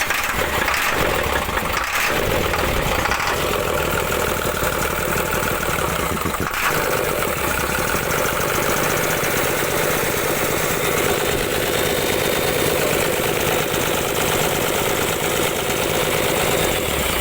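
Isuzu 6HK1 inline-six diesel engine cranking steadily on the starter without catching: a cranks-but-no-start condition after a top overhaul.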